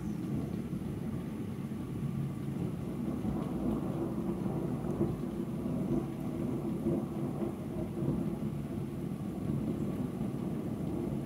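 Thunder rumbling on without a break, a low rolling rumble that swells a little now and then, with no sharp crack.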